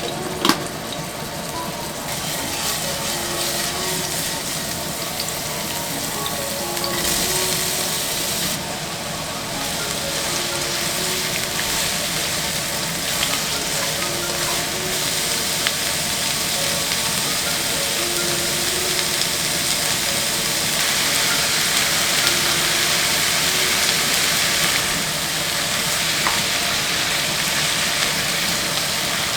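Food sizzling as it fries in a pan, steady throughout, with a sharp clink about half a second in and a few faint clicks later.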